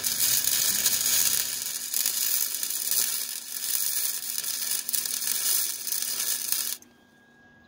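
Electric arc welding a roll-cage tube: a steady sizzling crackle as the bead is laid, stopping abruptly near the end when the arc is broken.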